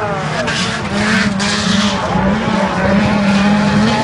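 Engines of small autocross race cars (class up to 1500 cc) running hard on a dirt track, a steady engine drone that wavers slightly in pitch, with rasping noise from the cars on the loose surface.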